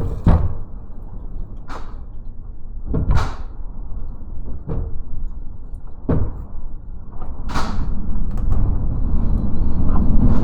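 Typhoon wind at the summit of Mt. Fuji, a loud, steady low roar that swells near the end. A short rushing hiss comes about every second and a half, six times.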